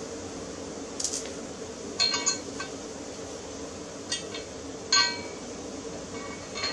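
Small metal parts being handled: several sharp metallic clinks, two of them ringing briefly, over a steady background hum.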